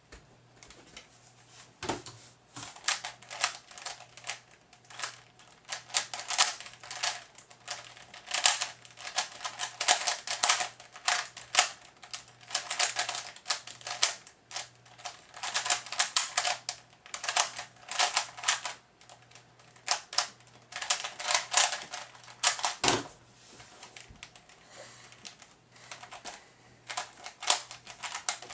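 Type A speed cube (a 3x3 puzzle) being turned fast in a timed speedsolve: runs of rapid plastic clicking and clacking broken by short pauses. A low thump comes as the solve starts and another as it ends.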